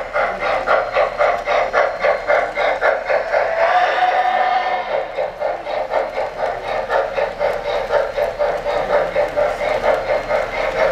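O-scale model steam locomotive, an MTH RailKing Norfolk & Western J class, running past with its electronic sound system chuffing rapidly and evenly, about five chuffs a second, over a steady hiss.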